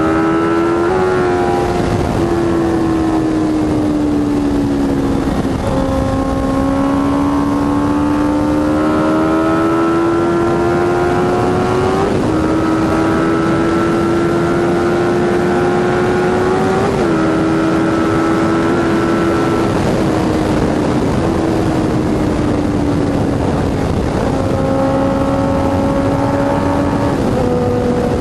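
Honda CB650F inline-four engine running through a full Jeskap GP2R 4-into-1 exhaust under way, its note climbing steadily in pitch and broken every few seconds by gear changes, then easing lower toward the end.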